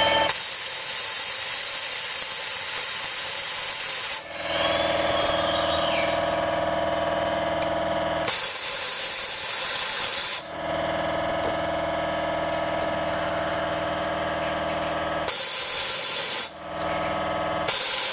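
Compressed-air cavity-wax spray wand blasting Dintrol inside a car's box section, in four hissing bursts: a long one of about four seconds, then shorter ones of about two seconds, one second and under a second. A steady hum sounds between the bursts.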